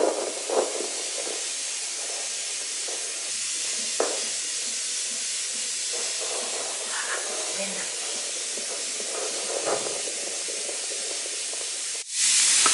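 Handheld fetal Doppler monitor's speaker hissing with steady static as the probe is moved over the belly searching for the baby's heartbeat, with a few faint knocks; the hiss cuts off abruptly near the end.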